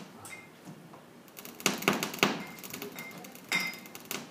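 Glass bottles being handled: a quick cluster of knocks and clicks about one and a half to two and a half seconds in, then a louder glass clink with a brief ringing tone about three and a half seconds in.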